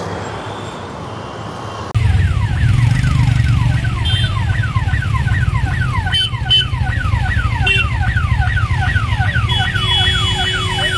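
Road traffic noise, then abruptly about two seconds in an ambulance siren sounding rapid falling wails, about three a second, over the low running of engines stuck in a jam. Short horn toots cut in a few times, and a horn is held near the end.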